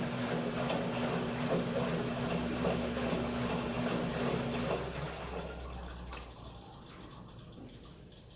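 KMC washing machine running, a steady motor hum with water churning in the drum; about halfway through the hum stops and the churning dies away.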